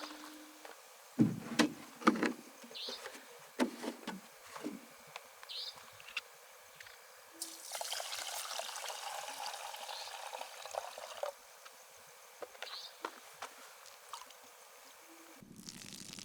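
Cooking pots handled with a few sharp knocks and clinks, then water pouring for about four seconds. A few short, high chirps sound now and then.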